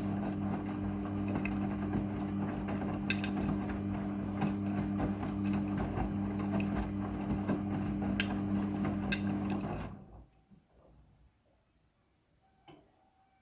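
Midea front-loading washing machine running its rinse cycle: a steady motor hum with occasional clicks as the drum turns, stopping abruptly about ten seconds in. A single faint click follows near the end.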